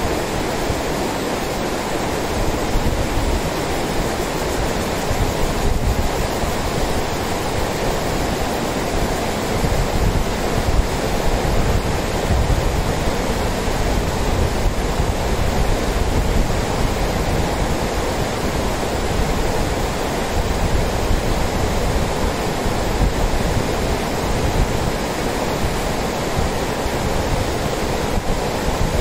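Lidder River rushing over a broad bed of rocks and gravel: a steady, unbroken rush of shallow white-water rapids.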